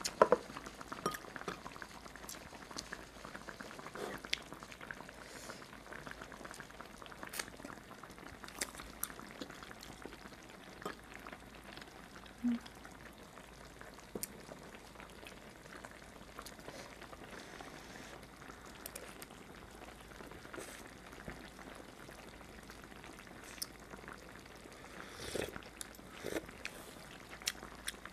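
Quiet bubbling of a pot of braised mackerel stew, with scattered small clicks from chopsticks and a spoon against the pot and bowl, and wet eating sounds.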